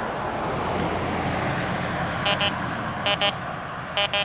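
XP Deus 2 metal detector sounding three pairs of short double beeps as its coil is swept over a seated dime lying among iron nails, in the conventional program. Under the beeps is a steady rushing noise that fades away near the end.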